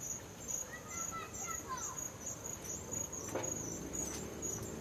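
Crickets chirping steadily in a high, even pulse, about two chirps a second.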